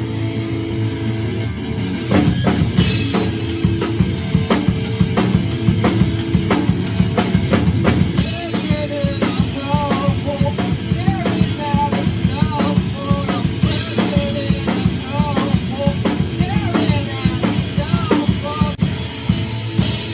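Rock band playing live: a drum kit with fast, even hits over distorted electric guitar and bass, the drums getting louder about two seconds in. A bending melodic line sits on top in the second half.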